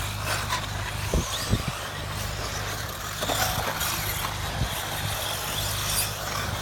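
1/8-scale electric off-road RC buggies racing on dirt: high-pitched electric motors rising and falling over a steady low hum, with several short thumps from the cars landing or hitting the track.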